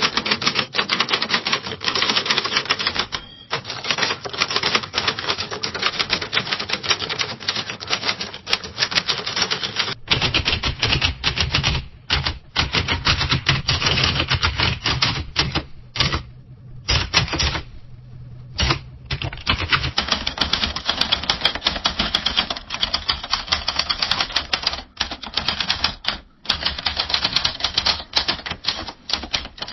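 Typing on a typewriter: rapid, dense keystroke clicks with short pauses. About ten seconds in the recording changes and a low steady hum runs beneath the keystrokes, with a couple of brief breaks in the typing a few seconds later.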